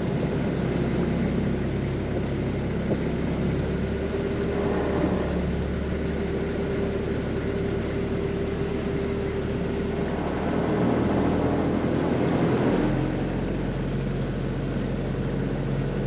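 Engine of a river passenger boat running steadily under way, with water and wind noise. Its low note changes abruptly about 13 seconds in.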